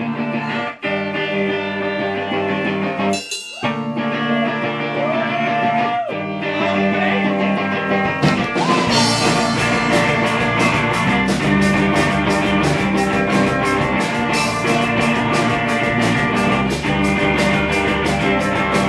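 Live rock band playing: sustained electric guitar chords at first, with two short breaks, then a full band with a steady drum beat coming in about eight seconds in.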